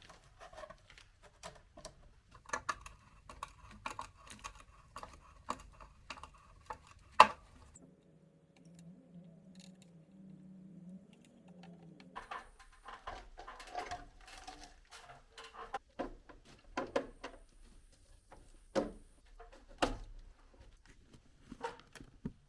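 Irregular clicks, taps and knocks of parts and tools being handled. About eight seconds in they stop for a few seconds, leaving a faint low hum, then start again.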